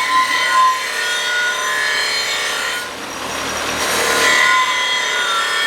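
Saw cutting through 1/8-inch-wall steel rectangular tubing at an angle: a steady grinding rasp with a few held ringing tones, easing slightly about halfway through.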